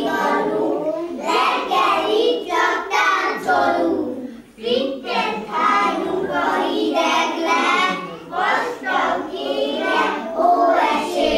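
A group of young children singing together, with a brief break about four and a half seconds in.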